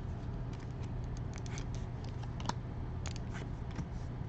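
Baseball trading cards being flipped and slid over one another in the hands: a string of light clicks and papery scrapes, over a low steady hum.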